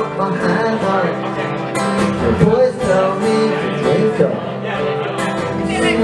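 A man singing live to his own acoustic guitar.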